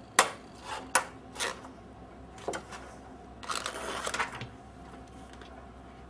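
Thin metal I/O back plate clicking and clattering against a steel computer case as it is pressed into its rear opening: a few sharp clicks in the first couple of seconds, then a brief rustling scrape about halfway through.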